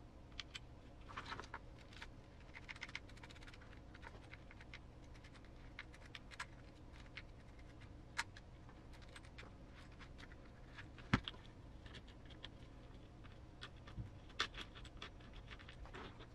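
Faint, scattered clicks and light taps of small plastic and metal transmission parts being handled and fitted together by hand, with one sharper click partway through.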